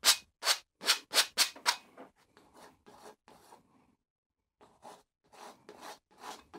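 Palette knife scraping oil paint across canvas in short, quick strokes, about three a second and loudest in the first two seconds, then fainter strokes with a brief pause about four seconds in.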